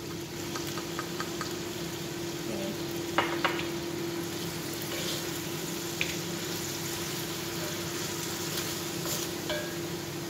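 Chicken cubes sizzling in a wok in soy sauce, fish sauce and sugar while being stirred with a wooden spoon, which knocks against the pan a few times, loudest twice in quick succession about three seconds in and once more about six seconds in. A steady low hum runs underneath.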